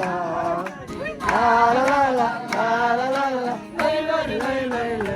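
Background music: a sung melody with instrumental accompaniment, phrases rising and falling with short breaks between them.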